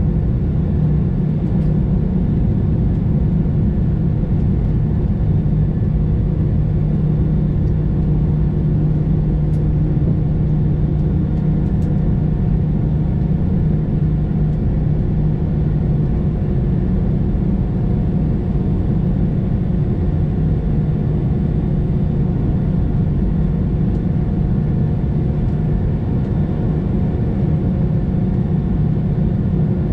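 Steady cabin rumble of an Airbus A320 taxiing with its jet engines at idle, with a low steady hum through it.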